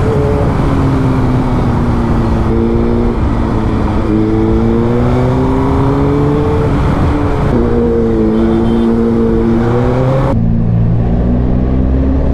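Suzuki GSX-R1000's inline-four engine pulling under throttle, its note rising slowly, dropping at a gear change about seven and a half seconds in, then rising again before settling lower near the end. Steady wind rush on the microphone, which cuts out abruptly as the engine note drops.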